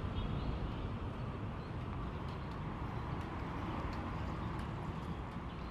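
Outdoor park ambience: a steady low rumble with a few faint, high, short chirps.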